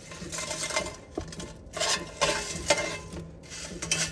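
Crispy air-fried tater tots tipped out of an air fryer basket, tumbling and clattering into a pan of frozen mixed vegetables in several short bursts. A faint low hum runs underneath.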